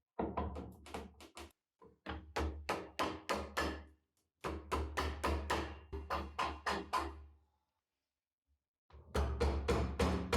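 Rapid rhythmic knocking, about five or six sharp strikes a second, in three bursts of roughly two seconds with short pauses between them.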